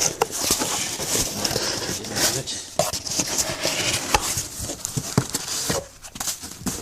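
A shipping box and its packing material being handled, with irregular rustling, crinkling and small knocks and clicks.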